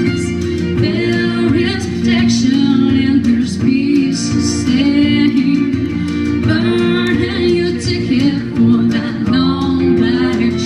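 A woman singing a country song into a microphone over an accompaniment with guitar.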